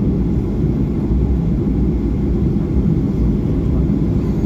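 Steady low rumble inside the cabin of a Boeing 737-800 taxiing, its CFM56-7B engines running at low thrust.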